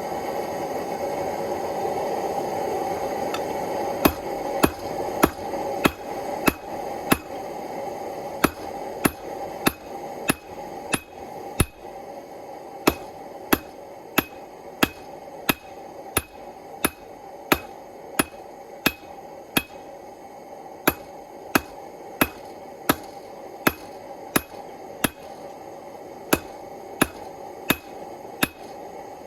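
Hammer blows on red-hot steel, a sharp ringing strike about one and a half times a second with a few short pauses, starting about four seconds in. Under them runs the steady rush of the forge flame, louder at first.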